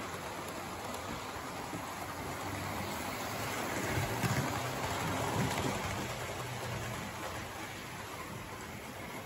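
Hornby OO gauge model trains running on the layout's track: a steady rumble of wheels on rail with a low motor hum, loudest about four to five seconds in as a train passes close.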